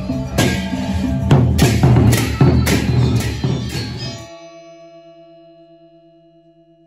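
Sasak gendang beleq ensemble of large barrel drums and clashing cymbals playing, with a series of loud strikes, then cut off abruptly about four seconds in, leaving a held low tone that slowly fades away.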